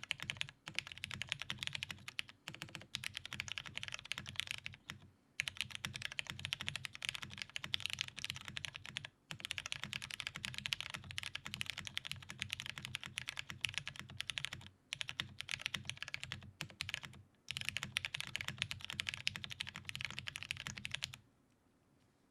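Top-mount custom keyboard with Cherry MX Brown tactile switches, a polycarbonate plate and GMK keycaps, typed on quickly in runs of a few seconds separated by brief pauses. The typing stops about a second before the end.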